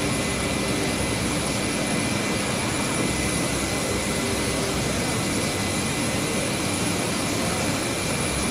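Jet airliner's engines running on the ground: a steady rushing noise with a high steady whine over it.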